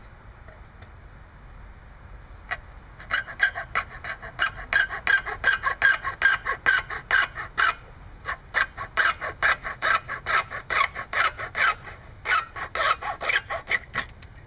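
Hacksaw cutting through the plastic mounting tab of a small-engine gas tank, with quick back-and-forth strokes of about four a second. It starts about two seconds in and pauses briefly twice.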